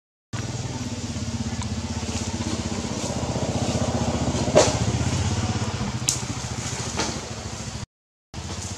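An engine running steadily with an even, low, pulsing hum. A few sharp snaps sound over it, the loudest about halfway through.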